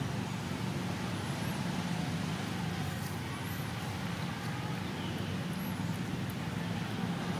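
Steady low engine hum, like distant road traffic, with faint high chirps about every two seconds.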